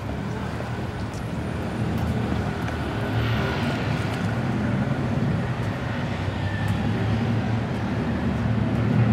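Steady low rumble of city street traffic, slowly growing louder.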